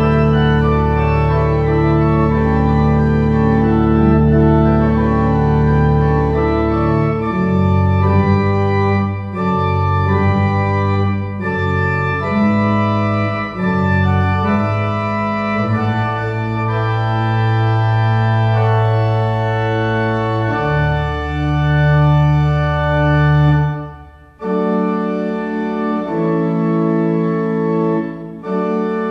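Pipe organ playing a slow funeral piece in held chords. Deep sustained pedal notes sound for the first several seconds, then the lines move more. Near the end it briefly falls away and the chords resume.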